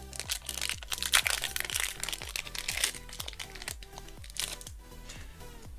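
Foil Pokémon booster pack wrapper crinkling and crackling as it is opened by hand, busiest in the first three seconds and thinning out after, over background music.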